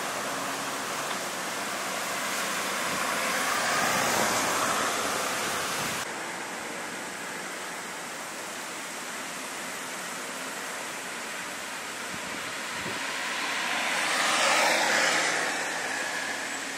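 Road traffic noise: vehicles running on the road, swelling as one goes by about four seconds in and again near the end. The sound changes abruptly about six seconds in.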